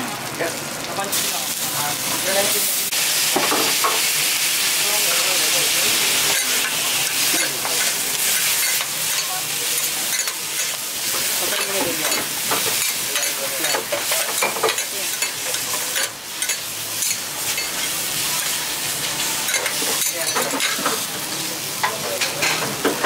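Yakisoba noodles sizzling on a hot flat-top steel griddle, with short knocks and scrapes of metal spatulas against the plate as the noodles are turned. The sizzle is loudest in the first few seconds.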